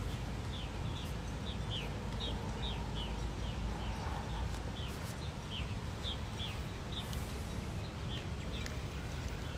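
A small bird chirping over and over, short falling chirps about two a second, over a steady low outdoor rumble.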